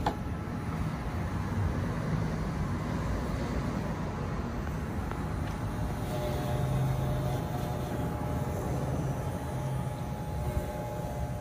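Corded electric hair clippers running with a steady hum as they are pushed through a dog's long, shaggy coat.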